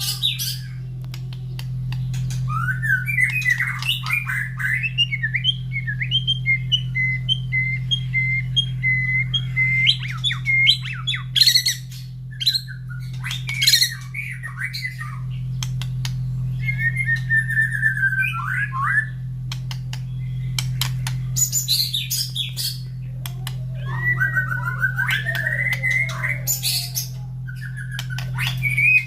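White-rumped shama singing vigorously: a long run of varied whistled phrases mixed with sharp clicking and rasping notes, over a steady low hum.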